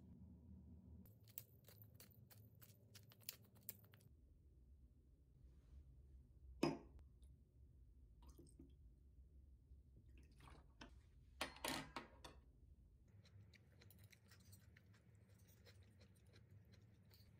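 Quiet table sounds of a fork and spoon on a metal plate: a quick run of small clicks about a second in, one sharp clink in the middle, then a cluster of clinks and light scraping as pasta is twirled, over a low room hum.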